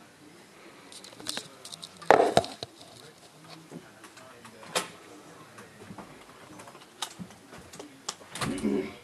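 Handling and movement noises: scattered clicks and knocks, with a loud thump about two seconds in and a burst of rustling near the end.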